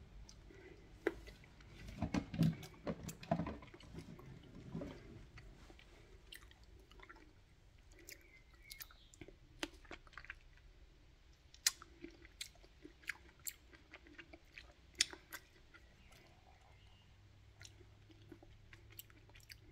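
A person biting into and chewing fresh cherries close to the microphone: a dense run of bites and chewing about two to five seconds in, then scattered sharp mouth clicks.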